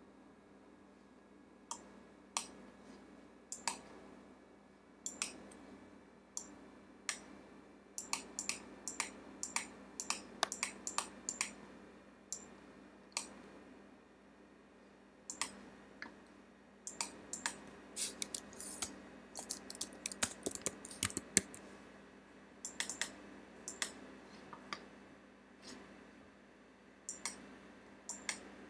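Computer keyboard and mouse clicks: single clicks spaced out, with quick runs of key presses, over a faint steady hum.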